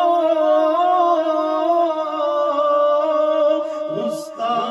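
Unaccompanied male voice singing an Urdu manqabat, holding one long, wavering melismatic note. It breaks briefly near the end before the next phrase starts.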